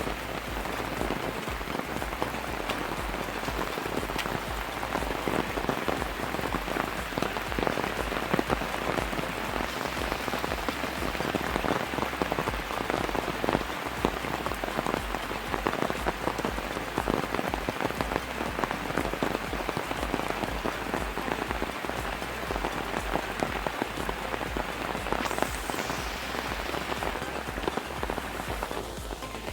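Steady rain falling on hard surfaces: a dense, even patter of many small drop hits.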